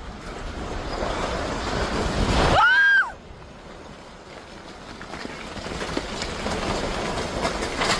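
Loud rushing, rumbling noise builds over the first three seconds, with a short high-pitched human cry at its peak. It then cuts off abruptly, and a softer rushing noise swells again afterward.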